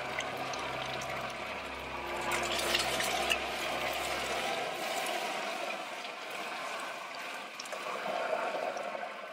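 Steady rushing noise like running water, louder for a moment two to three seconds in; a low hum underneath stops about five seconds in.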